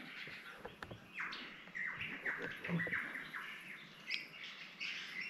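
Superb lyrebird singing its mimicry, running through a string of other birds' calls: a quick series of falling whistles, then shorter, higher notes near the end.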